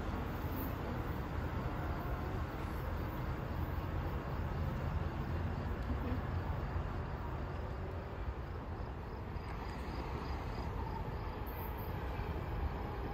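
Steady low rumble and hiss of a train, with no break or change in level.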